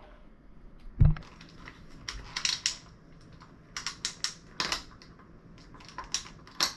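Hard plastic shell of a Monkey Feet leg-exercise attachment being handled and fitted: a heavy knock about a second in, then several bursts of sharp, irregular clicks and rattles.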